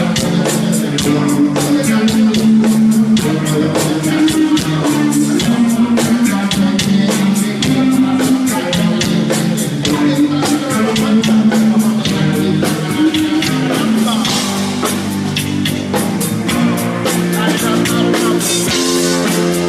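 Rock band playing live through a PA: electric guitar, bass guitar and drum kit, a repeating low riff over a steady beat.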